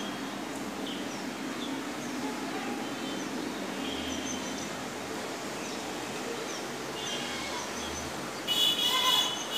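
Steady outdoor background noise with scattered short bird chirps. Near the end comes a loud, brief pitched blare.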